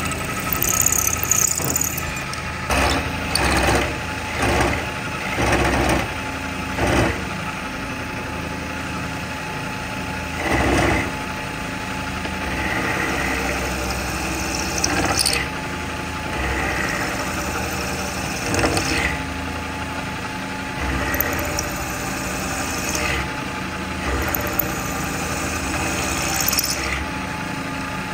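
Machine-tool motor running steadily, with repeated short, louder surges of metal cutting: about one a second for a few seconds, then every few seconds.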